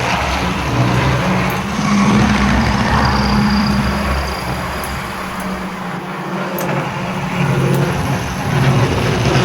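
Tri-ang OO-gauge Blue Pullman model train running on track: the power bogie's electric motor humming steadily with wheel and track noise. It goes softer a little past the middle and grows louder again toward the end.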